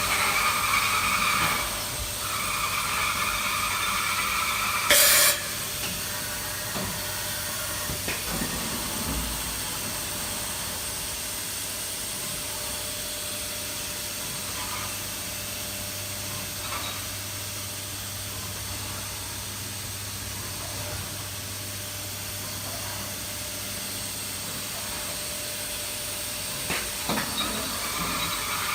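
1998 Mazak FJV-20 vertical machining center running under power with a steady low hum. A whirring runs through the first few seconds and stops, and there is a short, loud hiss about five seconds in.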